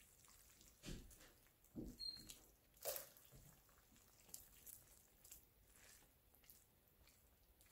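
Faint wet squishes and soft clicks of metal tongs pulling apart slow-cooked beef among stewed collard greens in a slow cooker lined with a plastic liner. The clearest clicks come about one, two and three seconds in, followed by a few lighter ticks.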